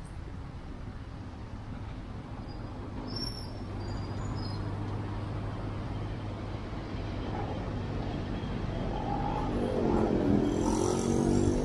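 Steady low rumble of a running motor vehicle and road traffic, growing louder through the stretch, with a pitched sound near the end that is the loudest part.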